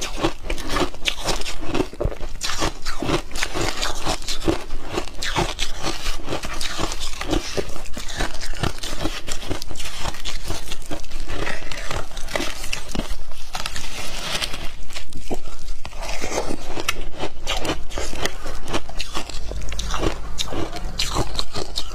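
Crunchy ice being chewed and picked apart by fingers close to a clip-on microphone: dense, rapid crunching and crackling.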